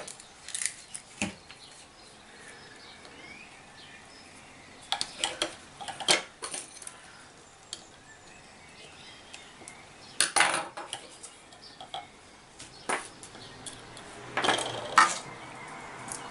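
Soldering iron and small metal tools clinking and tapping on a workbench during soldering of a headphone wire, in scattered clusters of short clicks with quieter stretches between.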